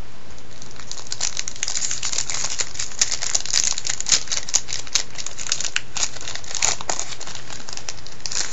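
The wrapper of a 2002 Topps Total baseball card pack being torn open and crinkled by hand. A dense run of crackles starts about a second in and dies away after about seven seconds.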